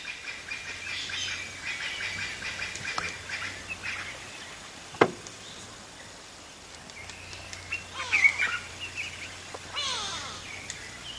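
Birds calling: scattered chirps and short whistled notes, with a cluster of quick falling whistles near the end. A single sharp click about five seconds in.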